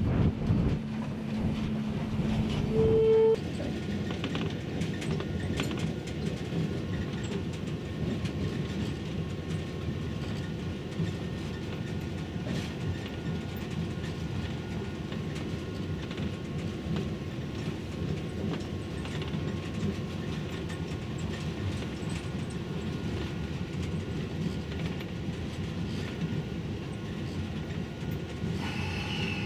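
Locomotive running and rolling on rails as it pushes a Russell snow plow through snow, heard as a steady rumble with light rail clicks from inside the cab. Louder for about the first three seconds, with a brief tone near the end of that stretch.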